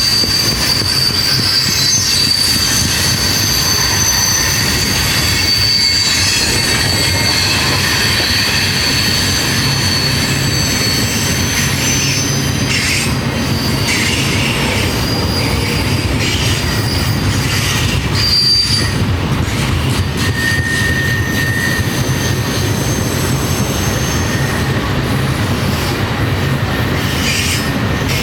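Freight train cars rolling past, with a steady low rumble under high-pitched wheel squeal that comes and goes.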